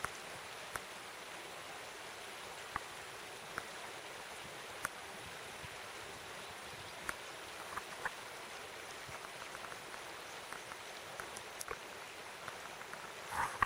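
A shallow stream running steadily, with scattered small sharp ticks and a short, louder cluster of sounds near the end.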